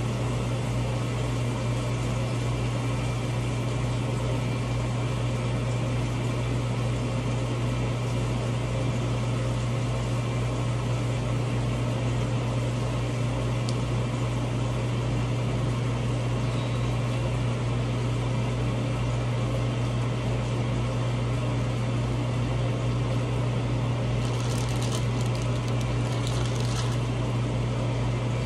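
A kitchen appliance running with a steady, even hum. A few faint crinkles of a plastic sauce packet being squeezed come near the end.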